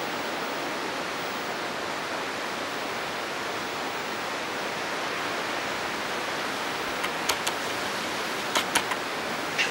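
Steady, even rushing hiss of background noise, with a handful of sharp clicks in the last three seconds.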